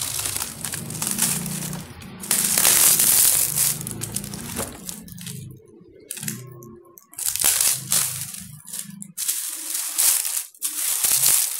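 Plastic wrapping crinkling and rustling in several loud bursts as it is handled around a rotary hammer, with music playing underneath.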